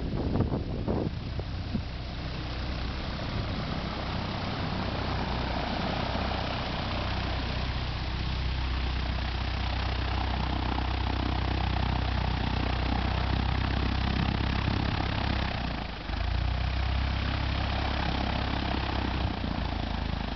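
Airplane engines running with a steady drone: a low hum under a broad rush of noise. The sound dips briefly about sixteen seconds in, then carries on.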